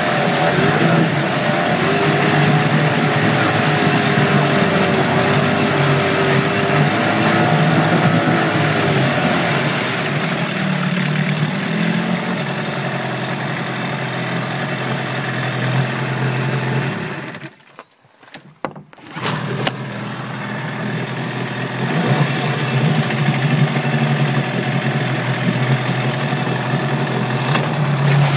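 2006 Yamaha 15 hp two-cylinder two-stroke short-shaft outboard (15FMH) running in a water test tank, its exhaust churning the water. The sound drops out abruptly for about a second and a half some two-thirds of the way through, then the engine runs on.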